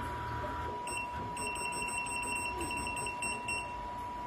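Programmable pattern sewing machine giving short, high-pitched electronic tones that repeat several times a second with brief gaps, over a steady high whine.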